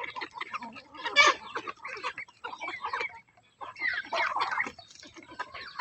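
Chickens clucking and squawking in quick, irregular bursts, loudest about a second in and again around four seconds in, with a short pause just after three seconds.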